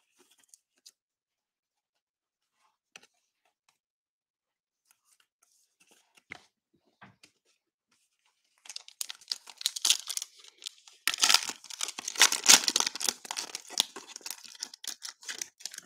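A 2021 Mosaic baseball cello pack's plastic wrapper being torn open and crinkled, starting a little past halfway and loudest in the last third. Before that there are only a few faint clicks as a card is slid into a plastic top loader.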